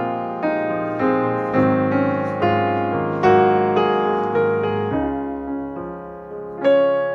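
Background piano music: a gentle melody of single struck notes, each fading away, about two a second, with a softer stretch before a louder note near the end.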